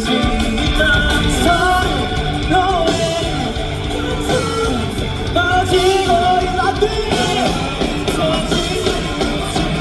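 Rock band playing live, with a singer's melody over the full band.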